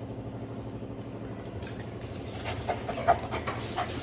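A dog panting in quick short breaths, with faint whimper-like squeaks, getting stronger in the second half.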